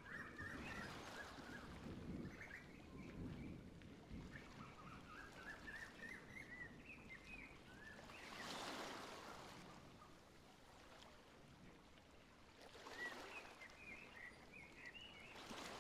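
Faint outdoor nature ambience: small birds chirping over a soft rushing background, which swells up twice, about eight and thirteen seconds in.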